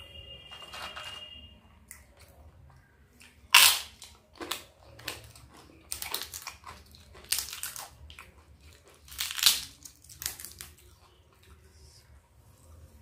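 Crisp papad (fried lentil wafer) cracking and crunching in a run of sharp crackles, the loudest about three and a half seconds in and again near nine and a half seconds.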